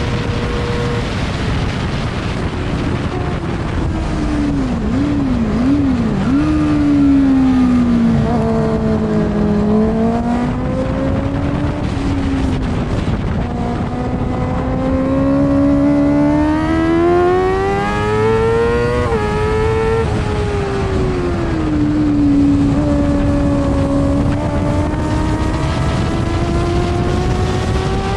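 Onboard sound of an F2 racing sidecar's engine at race pace. The revs climb and fall through the gears, with a quick run of downshifts about five seconds in and a sharp upshift about two-thirds of the way through, over heavy wind rush.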